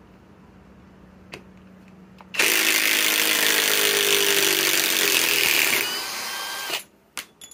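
Kobalt cordless right-angle impact wrench hammering a long bolt back out of a log: it starts a couple of seconds in, runs loud for about three and a half seconds, then runs more quietly for about a second before stopping.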